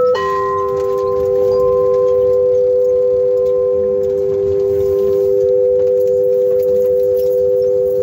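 Two crystal singing bowls ringing together. One is already sounding, and a second, lower-pitched bowl is struck just after the start. Both then hold steady, pure tones, while a higher overtone dies away after a few seconds.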